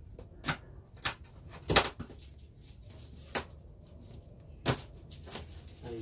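Handling sounds while unboxing: about six short, sharp clicks and knocks at uneven intervals, the loudest a little under two seconds in.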